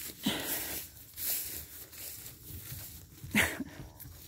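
Footsteps swishing through tall grass, with one sharper thump about three and a half seconds in.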